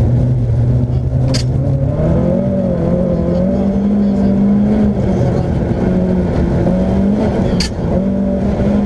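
Interior sound of a Mercedes 190E 2.3-16V rally car's 16-valve four-cylinder engine under hard throttle. The engine note climbs about two seconds in and then stays high, dipping briefly a couple of times. Two sharp clicks are heard, one early and one near the end.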